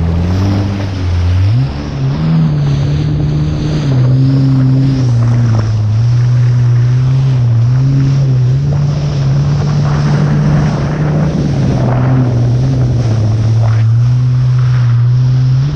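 Jet ski engine running hard at speed over rushing water. Its pitch jumps up about two seconds in, then rises and dips with the throttle.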